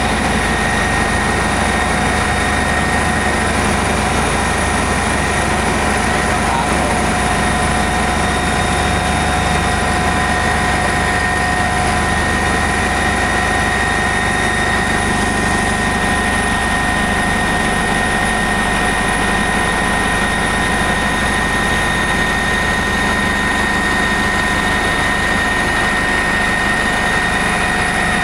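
Eurocopter EC145 helicopter in steady flight: an even rotor and engine noise with a constant high whine that does not change over the whole stretch.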